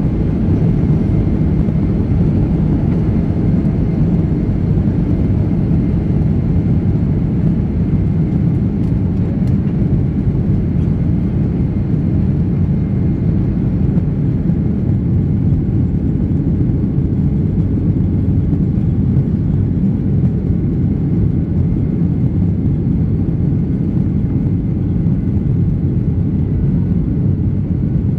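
Boeing 737-800's CFM56-7B turbofan engines at takeoff thrust, heard inside the cabin over the wing: a loud, steady, deep rumble through the takeoff roll, liftoff and initial climb.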